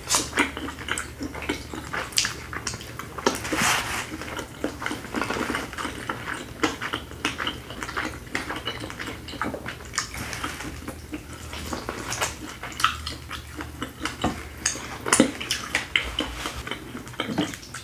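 Close-miked eating sounds: chewing, lip smacking and biting into corn on the cob and seafood, with many short sharp clicks and smacks.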